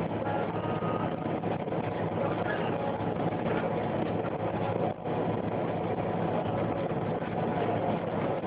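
City bus driving at a steady speed, heard from inside the cabin: a continuous engine drone with road and tyre noise. The sound dips briefly about five seconds in.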